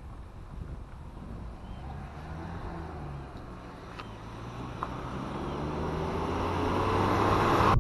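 A Ford Transit van approaching along the road, its engine and tyre noise growing steadily louder, with the engine note rising in pitch over the last few seconds.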